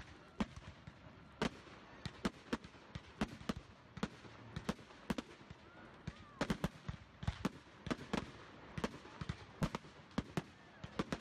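Fireworks going off: a run of sharp bangs at irregular intervals, about two a second, some close together in quick clusters.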